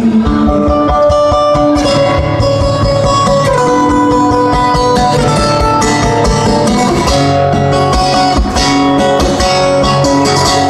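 Live band playing an instrumental passage: a guitar carries the melody in long held notes over bass and a steady kick drum.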